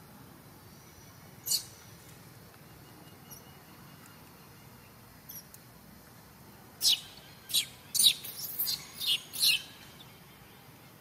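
Newborn long-tailed macaque squealing in distress while its mother handles it: one short high squeak about a second and a half in, then a rapid run of six or seven shrill squeals over about three seconds near the end.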